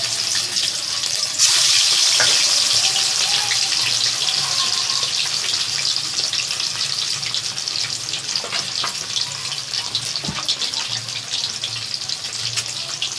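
Turmeric-marinated katla fish pieces sizzling and crackling in hot mustard oil, a dense frying hiss. It jumps louder about a second and a half in and then eases off slowly.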